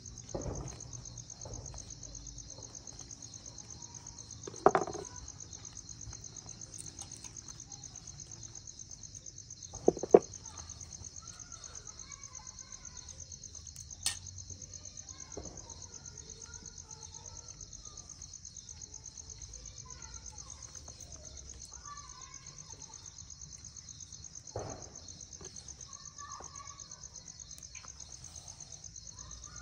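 Steady high chirring of insects, broken by a few sharp knocks of a knife and bread against a wooden cutting board. The loudest is about five seconds in, and a quick double knock comes about ten seconds in.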